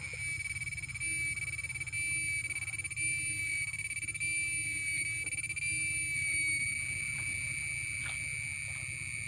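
A steady high-pitched whine that wavers slightly, with a low hum beneath it.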